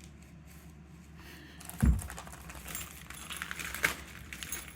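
A low thump about two seconds in, then light irregular rattling and crinkling as packaging is pulled off a new balance bike.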